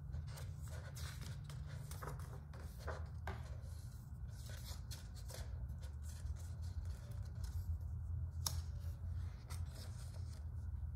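Pages of a large art book being turned by hand: paper rustling and sliding, with a sharp page click about eight and a half seconds in. A steady low hum runs underneath.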